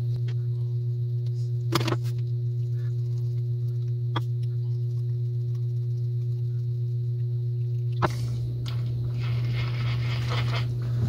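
A steady low hum throughout, under a few small metallic clicks from the Great Lakes Holiday "98" spincast reel's side plate as it is fitted and its screw driven with a screwdriver. A stretch of rustling handling noise follows near the end.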